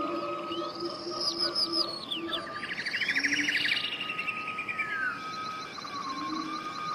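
Rainforest bird soundscape laid under the pictures: several birds calling over one another, with high swooping whistles, a fast chirping trill about halfway through, and short low hoots underneath.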